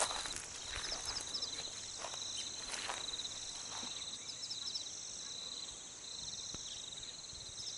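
Evening insect chorus: a steady, rapidly pulsing cricket trill with a higher steady hiss above it, and short runs of quick chirps every few seconds. A few soft knocks come in the first half.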